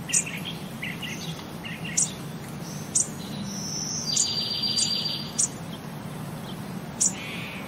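High bird-like chirps and trills, with short sharp clicks about once a second over a low steady hum.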